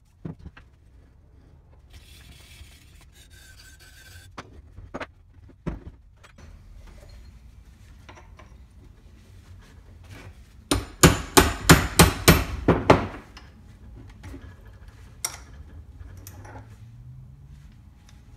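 Brass hammer striking a drill press's Jacobs chuck about eight times in quick succession, knocking it loose from the spindle. Before that, light clinks and rubbing as the metal parts are handled on the bench.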